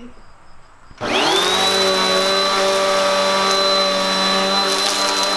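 Bissell PowerForce upright vacuum cleaner switched on about a second in, its motor whine rising quickly as it spins up, then running steadily at full speed.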